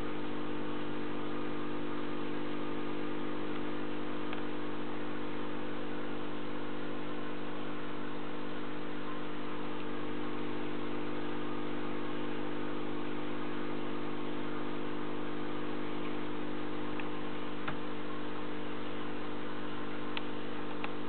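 Aquarium air pump humming steadily while its air stone bubbles, with a couple of faint ticks.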